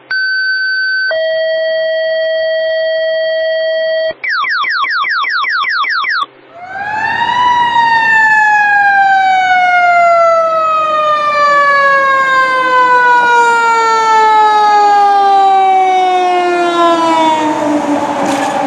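Fire engine sirens. An electronic siren gives a high steady tone for about a second, then a lower steady tone for about three seconds, then about two seconds of rapid rising yelps, several a second. After a short break a mechanical siren winds up to a peak and then slowly winds down, its pitch falling steadily.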